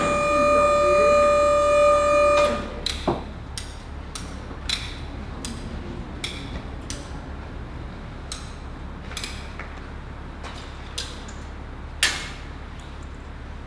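A steady, high-pitched tone with overtones cuts off about two and a half seconds in. After it come sharp clicks and knocks from hand tools on a mausoleum crypt front, about one a second, with a louder knock near the end.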